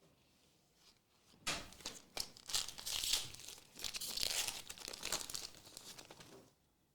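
Foil trading-card pack wrapper being torn open and crinkled, starting about a second and a half in and stopping shortly before the end.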